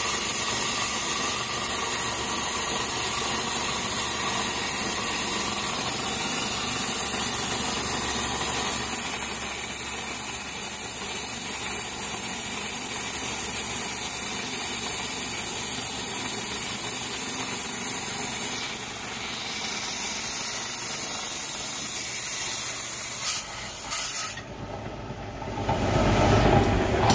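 Lapidary rock saw cutting through an agatized coral geode: a loud, steady hiss that drops away about three-quarters of the way through.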